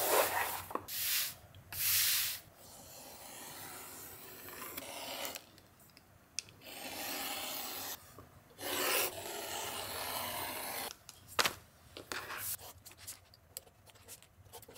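Leather being cut with a utility knife drawn along a steel ruler: after a couple of brief rustles of the leather sheet being handled, the blade runs through the leather in several long strokes, each lasting a second or more. A few sharp clicks and lighter scratches come near the end.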